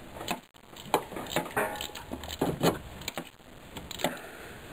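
Steel socket extensions and a ratchet clinking and knocking against each other as they are fitted together and worked into a spark plug hole: a handful of irregular metallic clicks, a few with a short ring.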